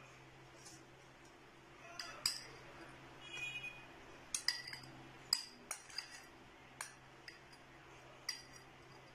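Metal spoon clinking against a small glass bowl while scooping out sticky candied fruit pieces: a dozen or so sharp, scattered clinks that begin about two seconds in.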